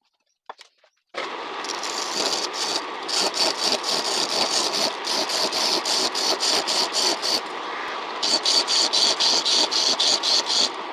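Homemade wood lathe running while a turning chisel cuts into a spinning log of pruned wood, a scraping cut with rapid sharp ticks as the tool meets the uneven surface. It starts abruptly about a second in and stops near the end.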